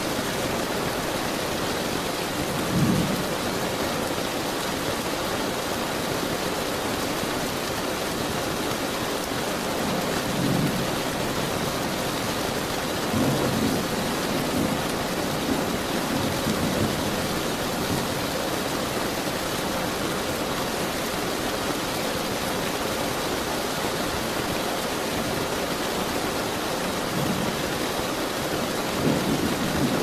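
Steady rain with several low rolls of thunder, the loudest about three seconds in, others around ten and fourteen seconds and near the end.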